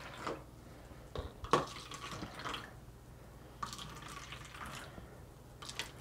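Apple juice poured from a bottle into cups, in short splashing pours, with a sharp knock of the bottle or cup about a second and a half in.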